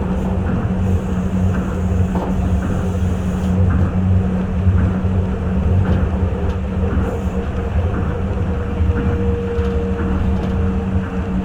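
Tokyo Monorail 1000-series train running at speed, heard from inside the car: a steady low rumble and hum with a constant low tone, with faint ticks at regular intervals. A faint higher whine comes up about eight seconds in.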